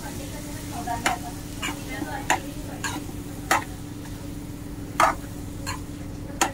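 Steel spoon stirring chickpea curry in a steel kadhai, with irregular sharp clinks and scrapes of metal on the pan about once a second over a low sizzle.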